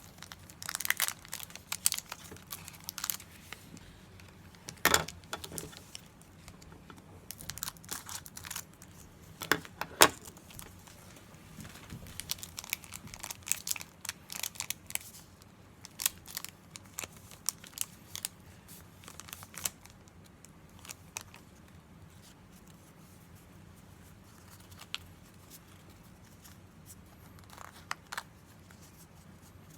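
Foil wrapper of a Pokémon TCG Chilling Reign booster pack being torn open and crinkled: irregular crackles and rips in scattered bursts, thinning out toward the end.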